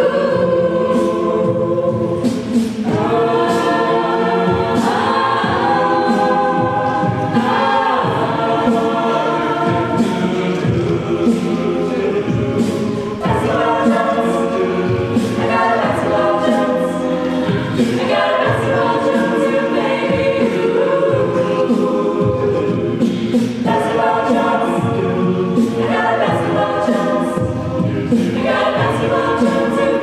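Mixed-voice a cappella group singing in close harmony, sustained chords shifting every second or two, with a soloist in front and a steady percussive beat from the voices running through it.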